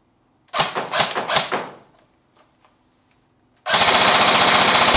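Tokyo Marui FA-MAS 5.56-F1 electric airsoft gun (AEG) firing. First comes a quick string of four or five shots in its first two seconds. Then, near the end, a sustained rapid-fire full-auto burst of over a second.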